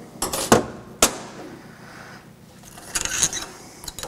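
Metal clanks and clinks as the Fox shock's parts are handled at the vise: two sharp knocks within the first second, then a short rattling clatter about three seconds in.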